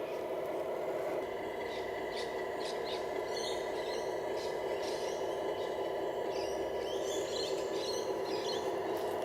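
Steady electric whine of a radio-controlled construction model's motors. From about two seconds in, high chirping sounds come over it.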